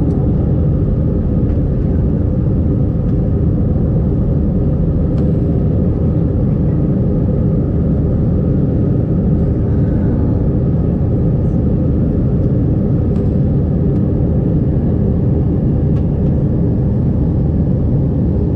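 Steady, loud jet airliner cabin noise during departure: engine rumble and airflow, heard from a window seat inside the cabin.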